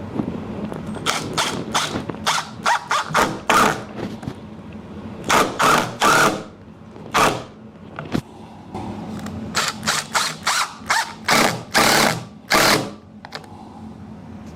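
Cordless power driver driving wood screws into a door frame in many short, rapid bursts, in three runs with pauses between.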